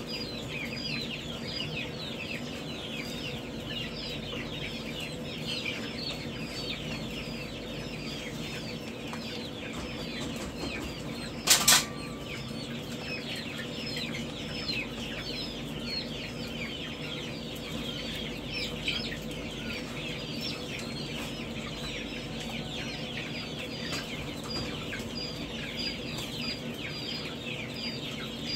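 A brooder full of baby chicks and quail peeping, a dense crowd of short, falling high chirps that never lets up, over a steady low hum. About eleven seconds in comes a single short, sharp knock, the loudest sound.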